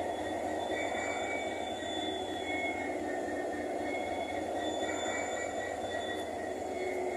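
WDP4D EMD diesel-electric locomotive running under power: a steady, dense rumble with thin high humming tones from its traction motors that fade in and out.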